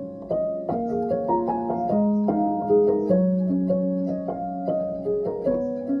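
Background piano music: single notes struck about every half second over lower held notes.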